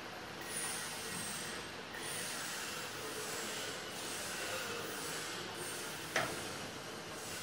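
Steady hiss and rush of water being filled into a TEP70 diesel locomotive's cooling system, with one sharp click about six seconds in.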